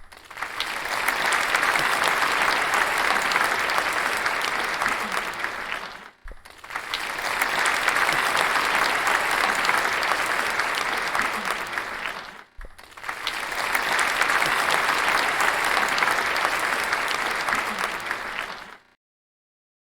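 Applause from many people clapping, a dense steady clatter of hands, in three stretches of about six seconds each with brief dips between them. It stops abruptly shortly before the end.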